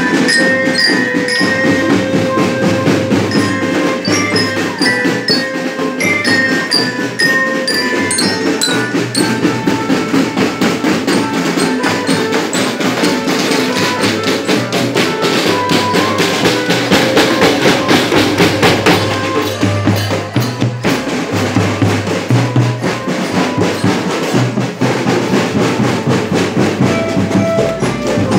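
A school marching drum band playing: marching snare and bass drums keep a steady beat while melodicas and an electronic keyboard carry the tune.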